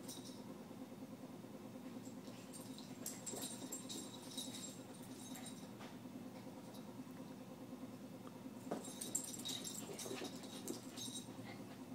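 Two small dogs, a Shorkie and a Morkie, play-wrestling on carpet: faint scuffling and pattering of paws, with clusters of light clicks about three seconds in and again about nine seconds in, over a steady low hum.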